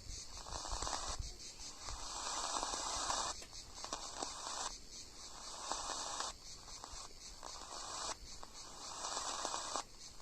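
Longwave radio receiver giving static and interference while tuned across the band: a steady high hiss, with a lower rough hiss that cuts in and out every second or two.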